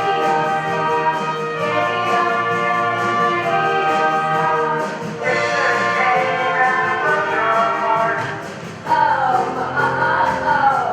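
Pop song playing with held chords and choir-like backing. After a brief dip, a louder wavering melody line comes in about nine seconds in.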